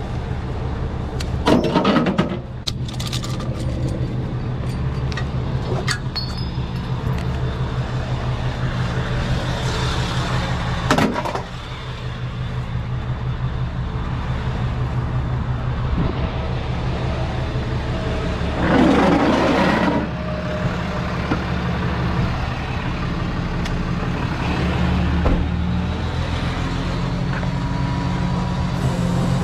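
Rollback tow truck's engine idling steadily, with three short, louder noisy bursts about 2, 11 and 19 seconds in.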